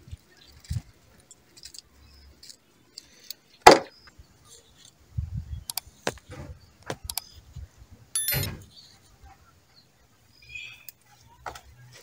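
Kitchen knife cutting amaranthus greens and vegetables, heard as scattered knocks and clinks of the knife and utensils against a basin and metal plates. The loudest is a single sharp knock nearly four seconds in.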